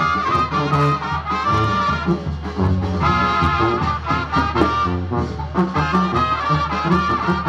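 Live brass band playing: trumpets and trombones over a steady beat.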